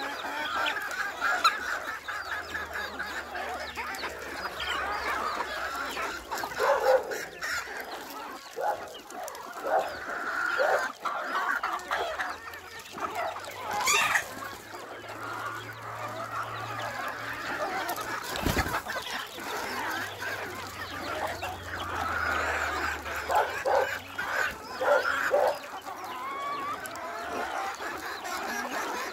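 Flock of hens and roosters clucking and chattering continuously while feeding together, with a couple of sharp knocks, one about halfway through and a heavier thump a few seconds later.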